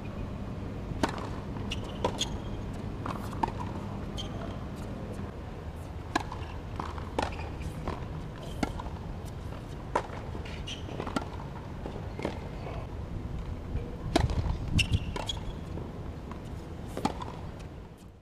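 Tennis balls being struck by rackets and bouncing on a hard court: a series of sharp pops roughly a second apart, with the loudest hits coming together about fourteen seconds in, around a serve.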